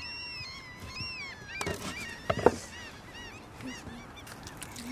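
A chorus of birds calling over and over in short, high, rising-and-falling calls, with a few sharp knocks about one and a half to two and a half seconds in.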